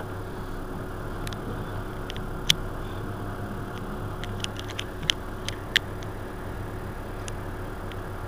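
Mercedes-Benz Citaro C2 city bus's diesel engine idling steadily at a stop, with scattered sharp clicks over the hum, most of them in the second half.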